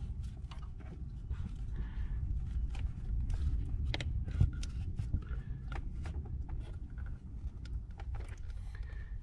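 Scattered light clicks, knocks and rubbing as a rubber hose is worked by hand through an engine bay, past a coolant line and two metal lines, over a steady low rumble.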